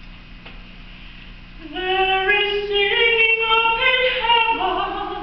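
A woman's solo soprano voice begins singing about a second and a half in, with long held notes that step upward. A faint steady low hum sits underneath before the singing starts.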